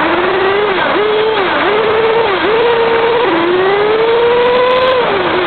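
Kyosho RC car's motor revving up and down several times, then holding one long, slowly rising pitch before dropping off near the end.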